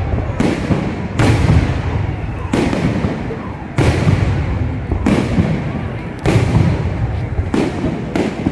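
Aerial fireworks going off in quick succession, a sharp burst about once a second, each followed by a deep booming rumble that fades before the next.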